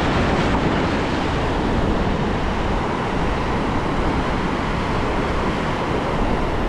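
Shallow ocean surf washing and foaming around the shoreline, with wind rumbling on the microphone.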